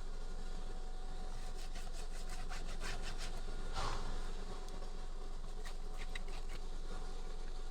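Hand rubbing and scraping on a steering wheel under restoration, with a run of small clicks and one louder rub about four seconds in, over a low steady hum.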